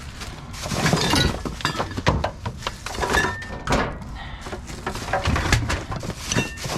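Scrap being rummaged through and tossed about in a dumpster: many irregular knocks, clatters and rattles of loose items like wire bundles, boxes and light fixtures striking one another.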